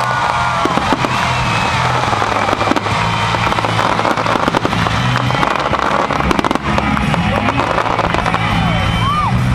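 Fireworks finale: a dense, rapid barrage of aerial shell bangs and crackles, heaviest in the middle, over steady background music.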